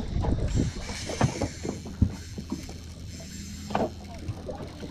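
Wind on the microphone and water lapping against a small aluminium boat, with a few sharp knocks about one, two and nearly four seconds in.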